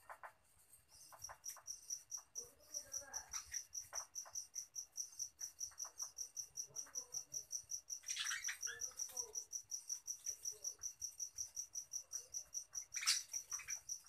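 A cricket chirping in a fast, even rhythm of about five chirps a second, starting about a second in and cutting off at the end. Under it, budgerigars chatter softly, with two brief louder calls about eight and thirteen seconds in.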